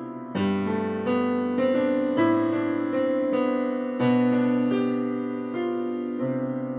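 Slow, gentle instrumental piano music: single notes and chords struck and left to ring and decay, growing quieter near the end.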